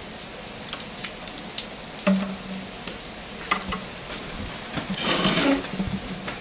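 Handling noise from a telescoping tripod being extended by hand: scattered clicks and knocks from its leg tubes and clamps, with a longer scraping rustle about five seconds in.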